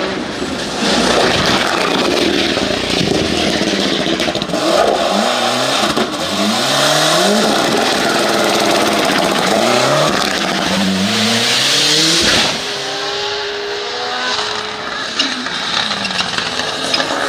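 Rally cars at full attack on a special stage: engines revving hard and climbing in pitch again and again through quick gearshifts, over tyre and road noise.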